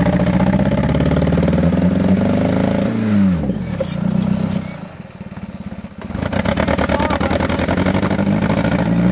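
1993 Mercury Tracer's four-cylinder engine revving hard as its front wheel spins in wet grass. The revs climb, drop sharply about three seconds in, ease off briefly, then climb again from about six seconds. The owner says this engine has a very bad misfire.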